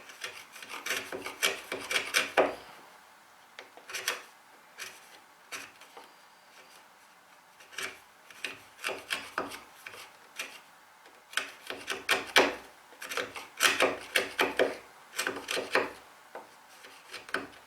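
Chisel paring and scraping the inside wall of a hand-chopped mortise, in clusters of short rasping strokes with brief pauses, cleaning off roughness left on the back wall.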